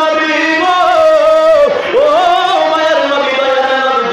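A man's voice chanting in long, drawn-out melismatic phrases with a wavering, ornamented pitch. The line breaks for a breath about two seconds in, then a new phrase glides up and is held.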